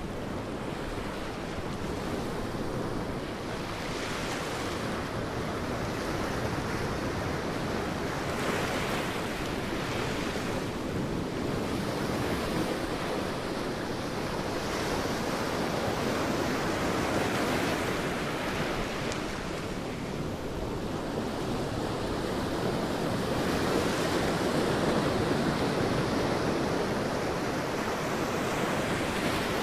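Sea waves breaking and washing up on a beach, a continuous surf noise that swells and eases every few seconds.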